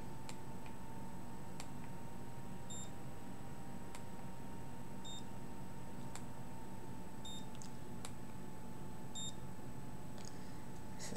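Short high electronic beeps from a digital thermometer taking readings, four of them about two seconds apart, with a few faint clicks and a faint steady tone underneath.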